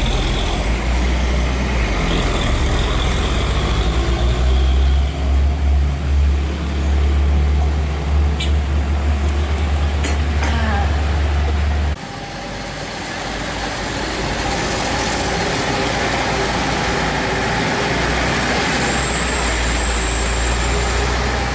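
Diesel truck engine pulling uphill with a strong low rumble, over a hiss of traffic on the wet road. About twelve seconds in the sound changes suddenly to a lighter, steady engine and traffic noise.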